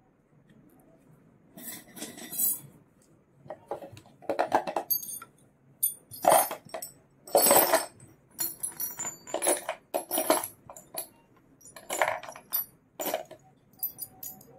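Silver jewellery being handled, clinking and jingling in irregular clusters of metallic clinks with a high ringing. The clinks start about a second and a half in.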